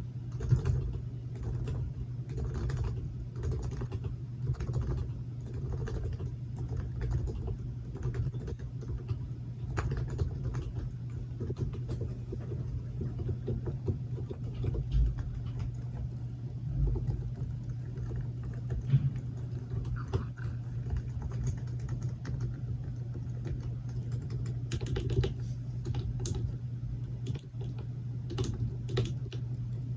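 Typing on a modified Topre Realforce electrostatic capacitive keyboard: an uneven, continuous run of keystrokes, over a steady low hum.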